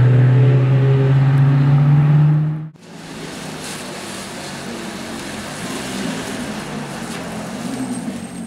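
Ferrari F430 Spider's V8 under load on a wet track: a loud, steady note slowly rising in pitch over a hiss from the wet road. Nearly three seconds in the sound cuts off suddenly, and the same V8 is then heard much more quietly, burbling at low speed.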